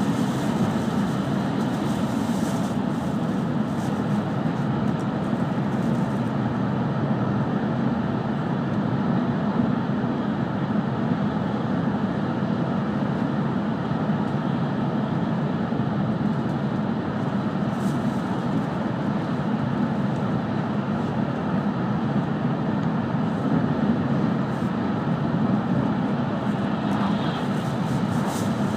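Steady low rumble of an E5-series Shinkansen running at speed, heard inside the passenger car, even and unbroken throughout.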